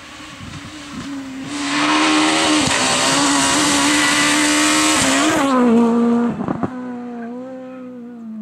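Renault Clio rally car engine at high revs, passing close while sliding through a corner, with a loud spray of grit and dust from its tyres. The note drops about five and a half seconds in, followed by a couple of sharp cracks, and the engine then runs on more quietly at steadier revs as the car moves off.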